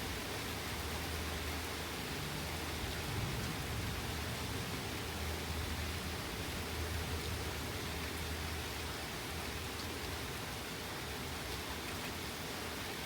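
Steady rain falling in a thunderstorm, an even hiss, with a low rumble swelling and fading underneath.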